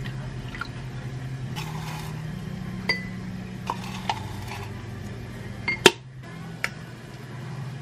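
A wooden spoon tapping and stirring in a glass mug while liquid and chili flakes are poured in, with a few sharp clinks on the glass, the loudest about six seconds in, over a low steady hum.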